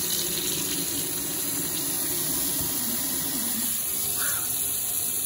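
Single-handle kitchen faucet turned on to test the repair, running water steadily into a stainless steel sink.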